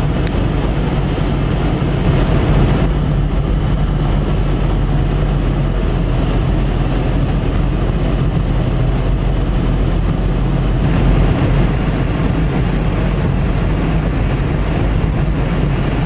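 Pickup truck cruising at highway speed, heard from inside the cab: a steady low engine drone under tyre and wind noise.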